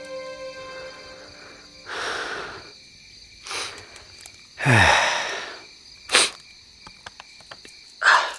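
Crickets chirping steadily while background music fades out about a second in. Several short breathy rushing noises cut across them; the longest, about five seconds in, ends in a low, steeply falling voice sound.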